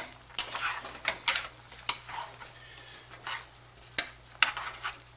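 A utensil stirring vegetables in a pot of noodles, knocking and scraping against the pot in irregular clinks.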